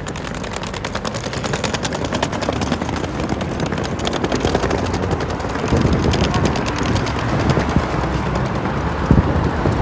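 Small hard wheels of a rolling suitcase clattering in a rapid stream of clicks as it is pulled over sidewalk paving, with a low rumble beneath that grows louder about halfway through.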